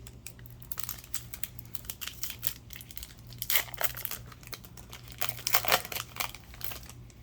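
A Lorcana booster pack's foil wrapper crinkling and tearing as it is opened by hand: a string of crackles, loudest around three and a half and five and a half seconds in.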